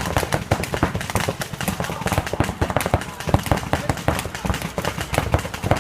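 Mechanical paintball markers firing in irregular volleys, several sharp pops a second, with voices behind them.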